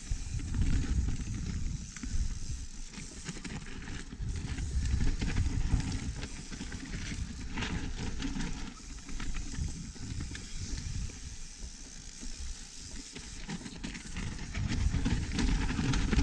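A Pivot Firebird 29 mountain bike ridden down a dirt trail, heard from a chest-mounted action camera: wind buffets the microphone in an uneven low rumble, over tyre noise on the dirt and scattered light clicks and rattles from the bike.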